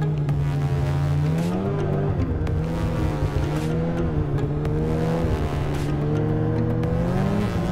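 Polaris 800 two-stroke snowmobile engine running under throttle through deep snow. Its pitch rises and falls several times as the throttle is worked through turns.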